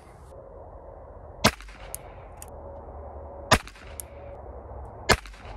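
Three shots from a Ruger Wrangler .22 LR single-action revolver, spaced about one and a half to two seconds apart, with a few light clicks after the first shot.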